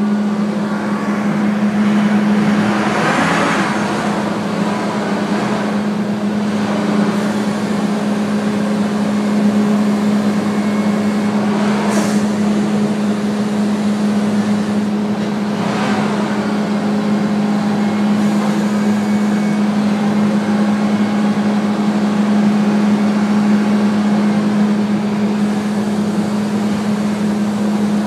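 A machine running steadily with a constant low hum, with a few brief clatters over it.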